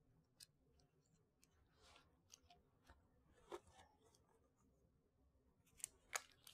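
Near silence with faint scattered clicks and brief rustles of medical supplies being handled and unwrapped at a bedside table.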